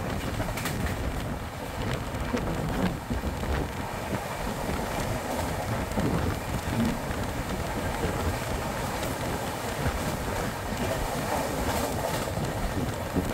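Passenger express train running at speed: a steady rumble of wheels on rails with the coach rattling, and occasional clicks over rail joints.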